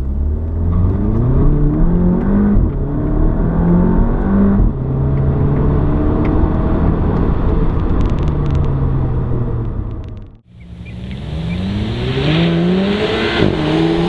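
Volkswagen GTI's turbocharged 2.0-litre four-cylinder engine through a COBB cat-back exhaust, heard from inside the cabin, accelerating hard through the gears. Its pitch climbs and drops back at each upshift, then falls slowly as the driver eases off. The sound breaks off about ten seconds in, and another run up through the gears follows.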